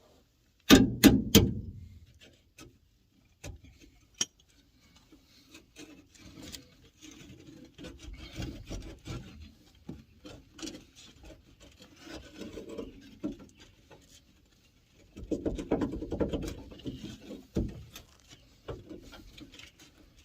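Hand tools working on a rusted truck hitch and its bolts: three sharp metallic knocks in quick succession about a second in, then scattered clicks and stretches of irregular scraping and rubbing.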